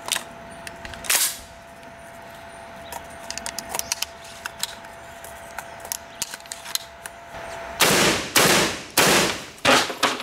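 Metallic clicks of shells being loaded into a 12-gauge shotgun, then four shotgun shots fired in quick succession, about half a second apart, near the end.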